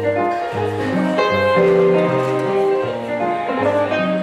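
Hollow-body electric guitar and keyboard playing the intro of an upbeat blues, a bass line stepping from note to note about twice a second under the chords.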